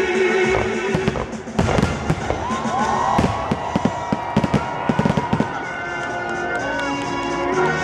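Fireworks going off in a rapid cluster of bangs and crackles from about a second and a half in to about five and a half seconds, with music playing underneath.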